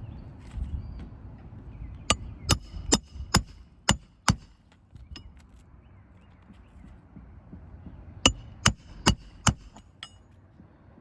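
A hammer striking in two runs of quick, ringing blows, about two a second: six blows, a pause of a few seconds, then four more and a fainter fifth.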